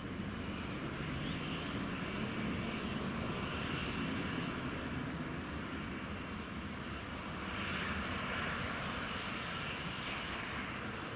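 Airliner engines running steadily, a continuous rushing drone that swells a little twice.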